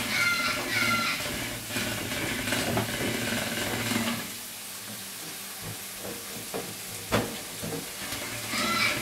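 Pet parrots giving repeated squawking calls, about two a second, at the start and again near the end. In between, a frying pan sizzles steadily, and there is one sharp knock a little after seven seconds.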